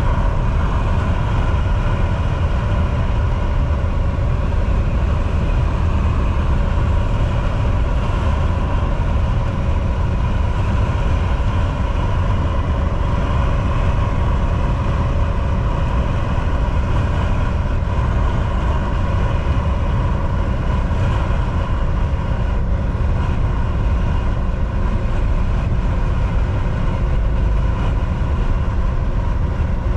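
Volvo VNL 760 semi truck cruising at a steady highway speed: a constant low engine and drivetrain rumble with a faint steady whine, under tyre and road noise.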